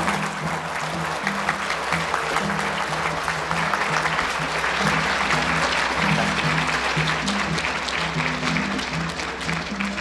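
Audience applauding, with music underneath playing low notes that step from one pitch to another.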